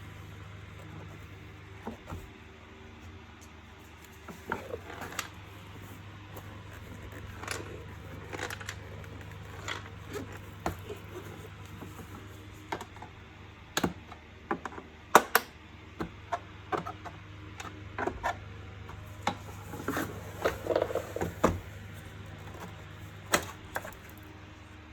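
Irregular clicks, taps and knocks of plastic parts being handled and pried apart while a vacuum cleaner's covers are taken off, over a steady low hum.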